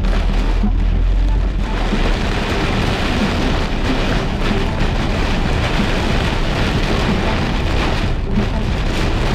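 Heavy rain drumming steadily on a vehicle, with a deep low rumble that eases off about a second and a half in.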